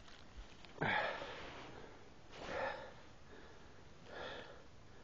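A man breathing hard: three heavy breaths about a second and a half apart.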